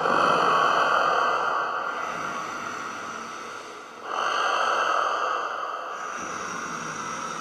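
A scuba diver breathing through a regulator underwater: two long, loud exhalations of rushing air and bubbles, one right at the start and one about four seconds in, with quieter breathing between.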